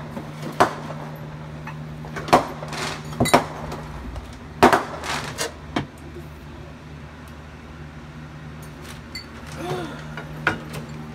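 Irregular sharp clicks and knocks, several in the first half and one more near the end, over a steady low hum.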